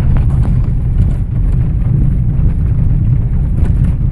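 Vehicle cab on a bumpy gravel road: a steady low rumble of engine and tyres, with scattered knocks and rattles from the rough surface.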